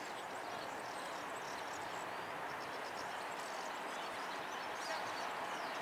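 Faint, steady outdoor background noise with scattered short, high chirps.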